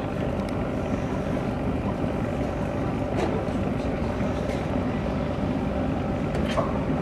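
Veteran boat's engine idling steadily while moored, with a couple of short knocks about three seconds in and near the end.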